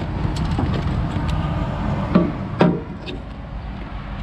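Clear plastic clamshell package being handled and opened to take out a 3M adhesive mounting pad: scattered crackles and clicks of the stiff plastic, with two louder creaks a little past two seconds in. A steady low rumble runs underneath.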